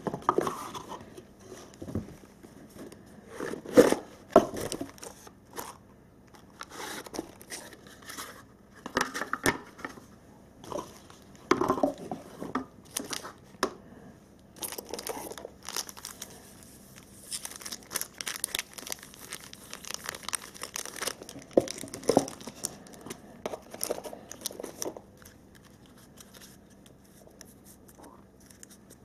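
Cardboard trading-card box being unpacked by hand: lids lifted off, inner cardboard boxes and their contents handled, and plastic packaging crinkling, in irregular rustles, scrapes and light knocks, the loudest knock about four seconds in.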